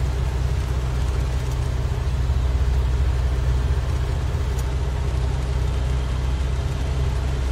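Truck engine running with a steady low drone, mixed with road noise, heard from inside the cab while driving.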